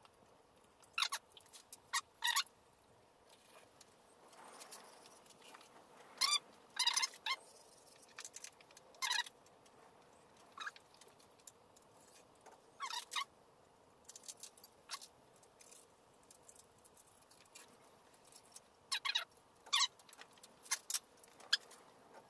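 Young chickens peeping in short, sharp calls, scattered irregularly and sometimes in quick pairs.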